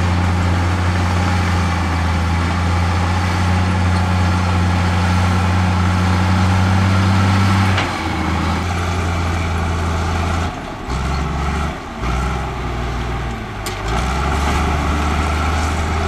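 Heavy diesel construction-machine engine running, dump truck or bulldozer. It holds one steady note, changes pitch about halfway through, dips in a few short steps, then settles to a steady note again near the end.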